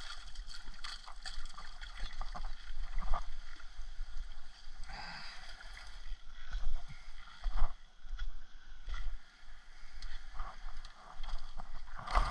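Water sloshing and splashing around mangrove roots as a small hooked snook is lifted out, with scattered knocks and rustles of handling and footing on the logs. A low rumble of wind on the microphone runs underneath.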